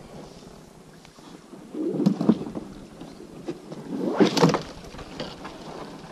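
Oars rowing an inflatable boat: two strokes swishing and splashing through the water, about two seconds apart.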